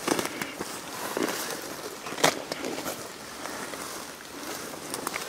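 Footsteps pushing through leafy forest undergrowth, leaves and twigs crackling and brushing, with a sharp crack about two seconds in.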